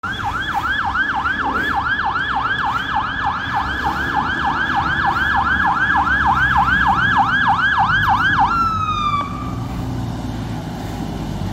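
Fire rescue truck's siren sounding a rapid yelp, about three quick up-and-down wails a second, as the truck responds with lights on. About eight and a half seconds in, the yelp stops and a short falling tone follows, with low engine and road rumble underneath.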